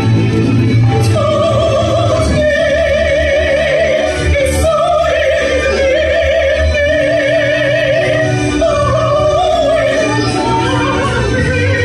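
Sung voice holding long notes with a wide, wavering vibrato over an accompaniment track with a steady low bass.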